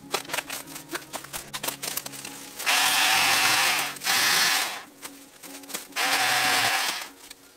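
Battery-powered VOLTAGA ET1612 pole chainsaw cutting regrowth bamboo in three bursts, the first about a second and a half long and the others shorter, a loud even rasp. Light rustling and clicks come before the first cut.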